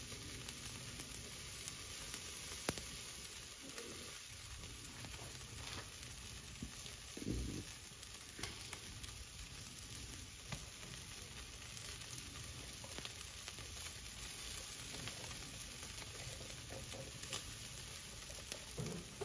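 Chicken drumsticks sizzling on the grate over hot charcoal: a steady hiss with scattered small crackles, and a single soft thump about seven seconds in.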